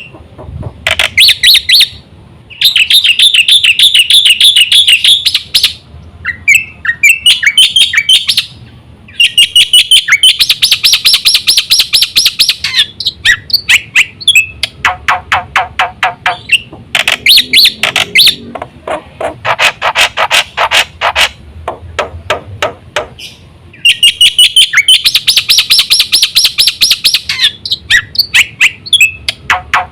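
Jalak putih (black-winged myna) singing loudly in long bursts: rapid strings of sharp repeated chirps and fast trills, broken by short pauses.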